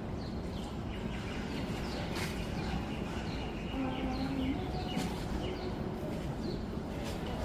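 Small birds chirping with many short, falling calls over a steady low rumble.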